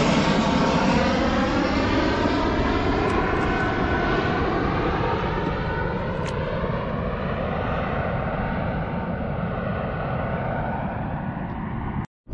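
Airplane passing overhead: a steady engine drone with a shifting, sweeping tone that slowly falls in pitch as it goes by, cut off suddenly near the end.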